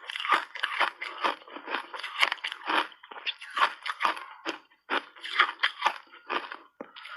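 Refrozen shaved ice being bitten and chewed close to the microphone: a fast run of sharp, brittle crunches, a few to each second, with brief pauses between bites.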